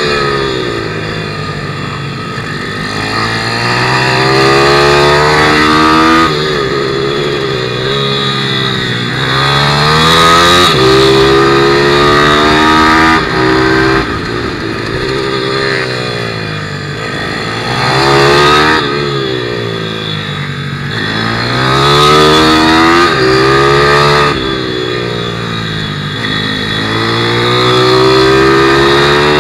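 A 160cc single-cylinder pit bike engine heard on board at racing pace, revving up hard and falling away over and over, with sharp pitch drops at each gear change and long falling sweeps when braking into corners.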